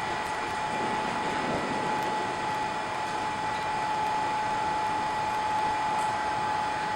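Hot-air heater blower of a WDS-650 BGA rework station running steadily during a heating cycle: an even rush of air with a constant high whine.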